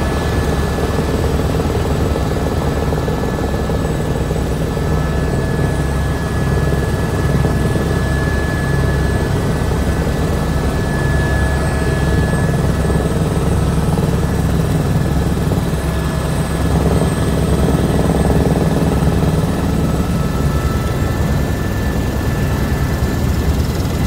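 Helicopter in flight heard from inside the cabin: a steady, loud drone of rotor and engine with a fast, even rotor beat and a thin high whine over it.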